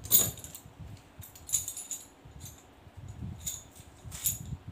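Steel three-flute concrete drill bits clinking and rattling against each other as they are gathered up by hand, a few separate clinks spread through.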